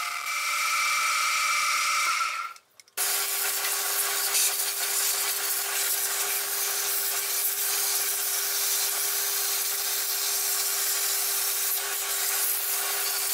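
Deckel FP1 milling machine running with a steady multi-pitched whine as its end mill cuts a steel plate, cut off about two and a half seconds in. Then a vacuum cleaner hose runs with a steady loud hiss and low hum, sucking metal chips off the mill table.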